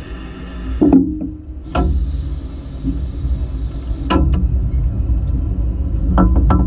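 Steam locomotive moving off: a clunk about a second in, then a steady hiss of steam from the cylinder drain cocks for a couple of seconds, cut off by a sharp knock. After that the running gear begins to turn, with a low rumble and a few clanks near the end.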